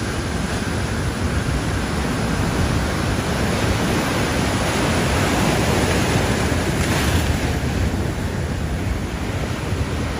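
Ocean surf breaking and washing ashore, with wind buffeting the microphone; the rush swells louder through the middle and eases near the end.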